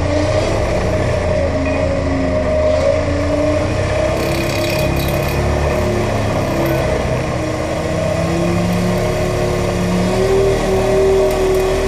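Excavator-mounted vibro hammer running on a steel sheet pile, with the excavator's diesel engine and hydraulics under load. It makes a loud, steady mechanical drone over a dense low rumble, with a whine that slowly rises in pitch.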